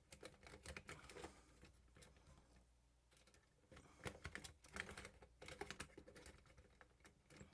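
Faint, irregular clicks and taps of small parts being handled during reassembly of a camcorder, with a short lull in the middle.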